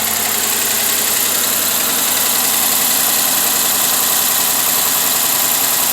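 2013 Dodge Charger engine running at idle with a misfire, ticking and tapping from a dead lifter.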